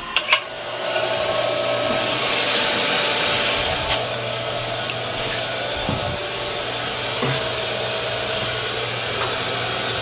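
A brass ball valve on a copper water line clicks open, then water rushes through the pipes with a steady hiss as the line refills and comes up to pressure. The hiss is loudest about two to four seconds in, then settles.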